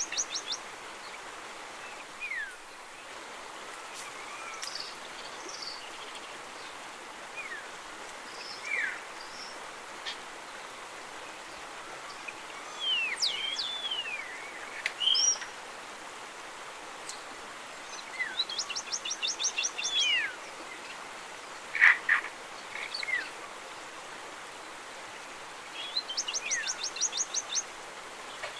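Songbirds calling over a steady background hiss: scattered short downward-sweeping whistles and chirps, with two fast trills of rapidly repeated high notes, one about two-thirds through and one near the end.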